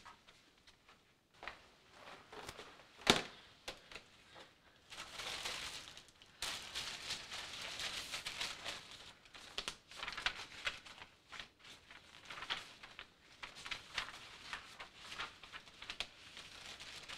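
Rustling, crinkling and small clatters of someone rummaging through things by hand while searching, with one sharp knock about three seconds in.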